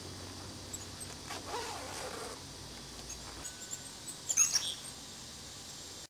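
Small wild songbirds calling with short, high chirps, scattered through, with the loudest cluster of chirps about four and a half seconds in.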